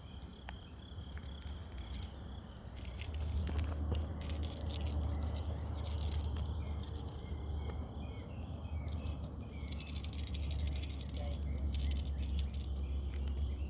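Steady outdoor insect chorus of crickets chirring, over a low rumble that swells about three seconds in. Scattered light ticks and rustles sound through it, clustered about a third of the way in and again near the end.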